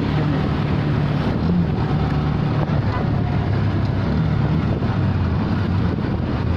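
Handheld electric polishing tool running steadily as it buffs a car headlight lens, a continuous motor drone with a wavering low hum.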